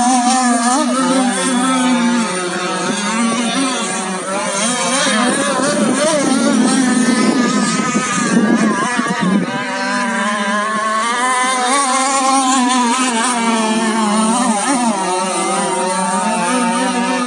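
Racing catamaran boats' engines running at high revs, several high-pitched engine notes overlapping and wavering up and down as the boats race, loudest in the middle.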